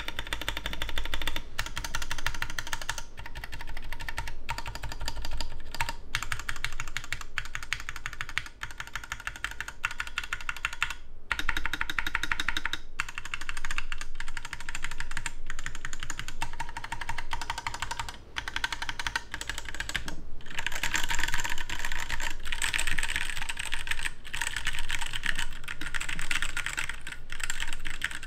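Continuous typing on a 60% custom mechanical keyboard with unlubed Gateron Yellow linear switches and cheap keycaps: a steady patter of key clacks, with a few short pauses and a louder stretch in the last third.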